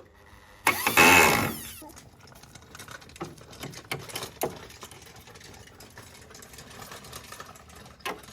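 A small power tool runs in one short burst of about a second, starting about a second in, then scattered light knocks and clicks of woodworking.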